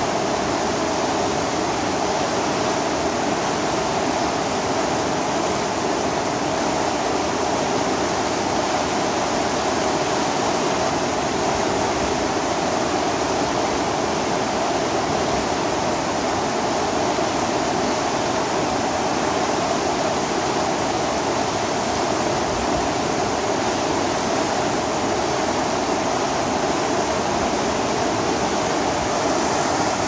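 Water pouring over a low concrete weir on a canal and churning in the pool below: a steady, unchanging rushing noise.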